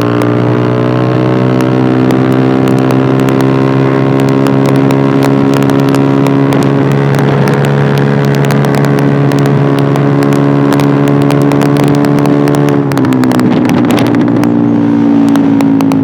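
Yamaha Aerox 155 scooter's single-cylinder engine through an Eternal aftermarket racing exhaust, pulling under throttle with its pitch rising a little, then held steady. About thirteen seconds in the throttle closes and the pitch drops, with the exhaust crackling and popping on the overrun.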